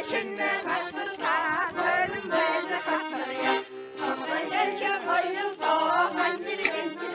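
Buryat folk song sung by a group of elderly men and women to a button accordion accompaniment.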